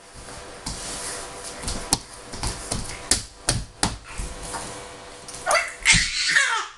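A baby's palms slapping a wooden floor several times in quick, uneven strokes. About five and a half seconds in comes the loudest sound, a high squeal from the baby that falls in pitch.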